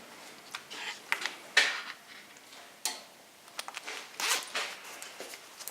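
Scattered clicks, short scrapes and rustles of a car's hood being released and lifted, with a few sharper knocks about a second and a half in, near three seconds and past four seconds.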